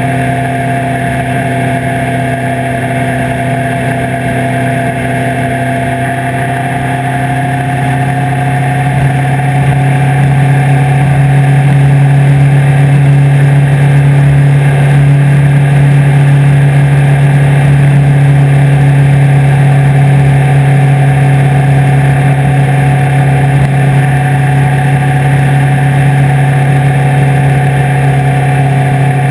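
Suzuki Hayabusa's inline-four engine running at road speed, with wind rushing over the camera. The engine note rises slightly and grows louder from about eight seconds in, then holds steady.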